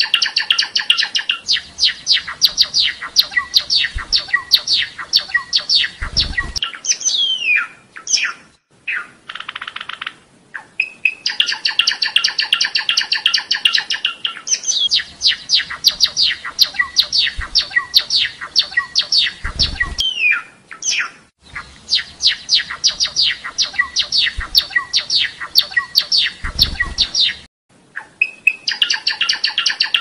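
Java sparrow (glatik belong) singing: long runs of rapid, evenly repeated clicking, bell-like notes, some phrases ending in a falling note, broken by a few short pauses.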